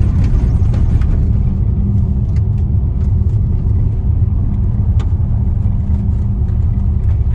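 Car driving on a gravel road: a steady low rumble of tyres and engine, with a few sharp ticks.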